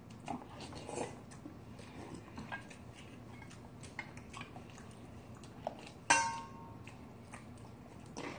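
Quiet eating at a table: faint scattered clicks of metal spoons and chopsticks against stainless steel bowls, with some chewing. About six seconds in comes one louder clink of metal on a stainless bowl that rings briefly.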